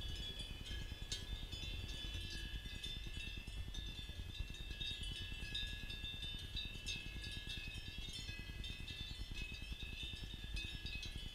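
Cowbells on grazing cattle clinking and ringing continuously, several bells at once, faint over a low rumble of wind.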